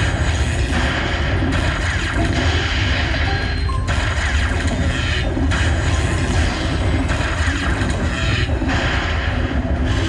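Lightning Buffalo Link slot machine in its free-games bonus: the machine's bonus music plays with booming thunder-crash effects as lightning strikes the reels.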